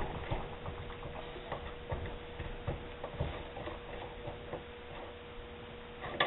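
Light, irregular clicks and ticks of small metal parts being handled and unscrewed by gloved hands, over a faint steady hum. One sharper click comes near the end.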